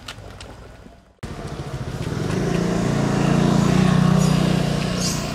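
A few faint ticks, then after a sudden cut a motor vehicle engine runs past, swelling to its loudest about four seconds in and then easing off.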